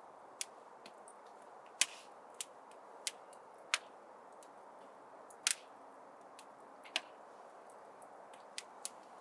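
Wood fire crackling in a fireplace: a soft, steady hiss of burning, broken by sharp, irregular pops, about ten of them.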